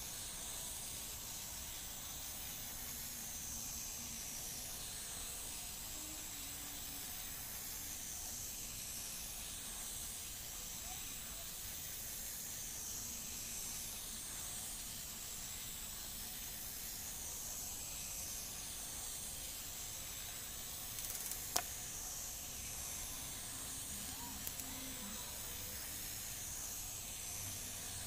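A steady, faint hiss that does not change, with one sharp click about twenty-one seconds in and a couple of light ticks a few seconds later.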